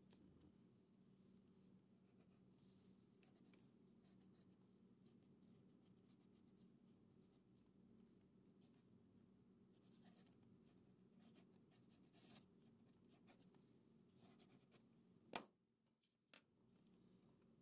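Near silence with faint scratching of a pencil on paper over a low steady hum. A sharp click comes near the end, with a lighter tap about a second later.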